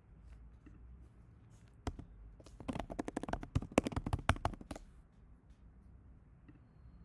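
A quick, irregular run of sharp clicks and taps close to the microphone, starting about two seconds in and lasting about three seconds, loudest near the middle.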